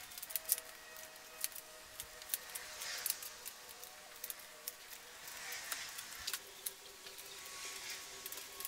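A wet microfiber wash mitt is wiped over car paint. Soft swishing strokes swell and fade every couple of seconds, with scattered small clicks and taps.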